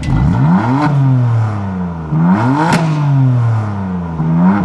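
BMW M3's twin-turbo straight-six free-revving at a standstill, heard from behind at the quad exhaust tips: three throttle blips, each rising quickly in pitch and then falling back. A sharp crack comes near the top of the second rev.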